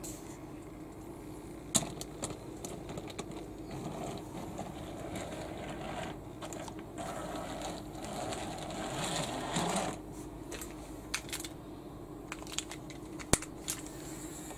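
Wooden toy subway car handled on plastic track: scattered sharp clicks and taps of its wheels and body against the track, with a rolling rumble of the wheels along the track from about four to ten seconds in.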